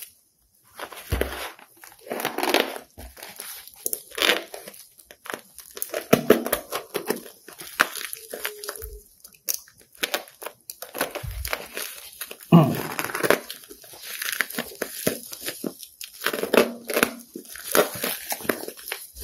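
Plastic shipping packaging being opened by hand: irregular crinkling, rustling and tearing, with a few short low thumps as the package is handled.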